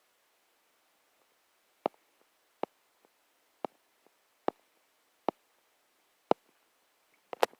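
A Kershaw Cryo folding pocket knife being worked open and shut. Its blade and lock give a series of sharp clicks about once a second, with a quick double click near the end.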